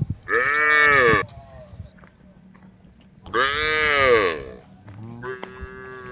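Cows mooing: two loud calls of about a second each, rising then falling in pitch, then a fainter call near the end.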